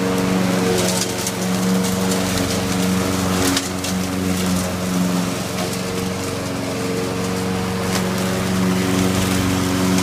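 Small gasoline lawn mower engine running steadily while the mower cuts grass, with a few sharp ticks over the engine tone.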